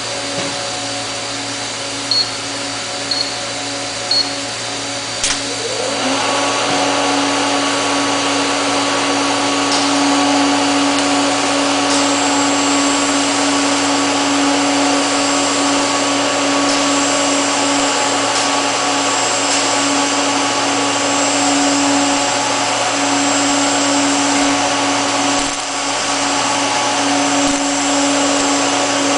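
A welding station's steady hum, with three short electronic beeps about a second apart. About five seconds in a sharp crack marks the TIG arc striking. It is followed by a brief rising whine, then the steady hiss and hum of the hot-wire TIG arc welding carbon steel pipe, a little louder than the hum before it.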